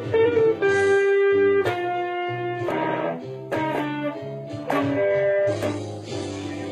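Fender Telecaster electric guitar playing a blues-style lead of single picked notes, then a fuller strummed chord about five and a half seconds in that rings on.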